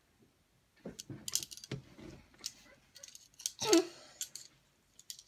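Handling noise: a run of clicks, light clatter and scraping rustles of small hard objects being moved about, loudest about two thirds of the way through.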